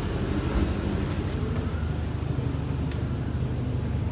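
Steady low engine hum aboard a houseboat, with a few faint light clicks over it.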